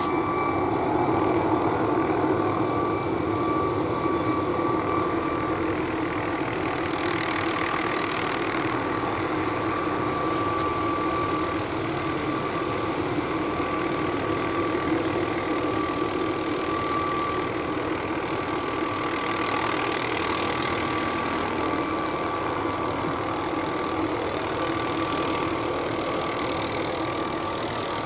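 McDonnell Douglas MD 520N NOTAR helicopter running steadily: a constant high turbine whine over the broad rush of its main rotor, with no tail rotor in the sound.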